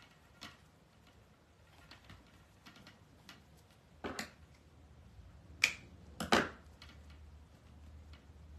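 Handling noise from ribbon and deco mesh being worked by hand: scattered sharp clicks and rustles, loudest a pair about four seconds in and three more close together about a second and a half later.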